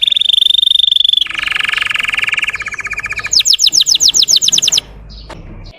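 Russian canary singing a series of rapid trills, each held at one pitch before switching: a high rolling trill, then a lower one, then a burst of quick sweeping notes that breaks off about a second before the end.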